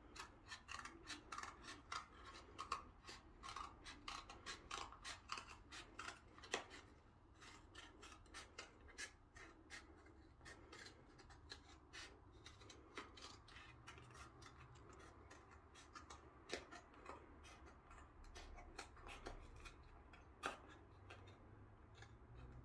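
Scissors cutting a white cardboard packaging insert: a run of quiet snips and crunches, close together for the first several seconds, then sparser.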